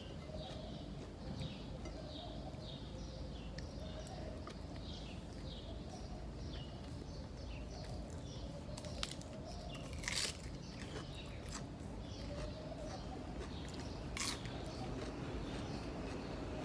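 Small birds chirping over and over in short falling chirps, with a few sharp clicks, the loudest about ten seconds in.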